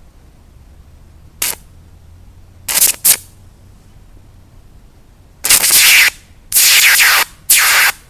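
Electric arc struck between two graphite electrodes fed by three 12-volt car batteries in series (36 volts), sounding in separate short bursts of noise as the electrodes touch and part. There is a brief one about a second and a half in and two quick ones near three seconds. Three longer, louder bursts of about half a second each follow in the second half.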